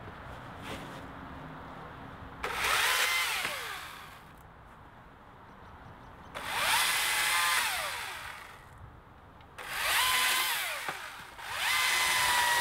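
Husqvarna T535i battery chainsaw with a 12-inch bar and Oregon Advance Cut chain, run on regular (full-power) mode, cutting branches in four short bursts. Each time the electric motor's whine spins up quickly and then winds down, falling in pitch as the trigger is released.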